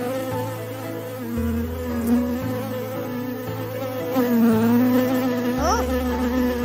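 Steady, wavering insect buzz, a cartoon bee sound effect, over a background music track whose low notes change about once a second, with a few short rising chirps near the end.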